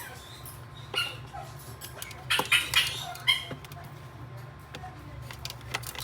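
Caique parrots giving short squawks and squeaks during a chick feeding, in separate bursts with the busiest cluster about two and a half seconds in, over a steady low hum.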